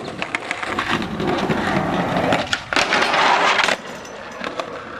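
Skateboard on concrete: several sharp clacks of the board in the first second, then a louder stretch of rough rolling and scraping board noise that cuts off suddenly just before four seconds in.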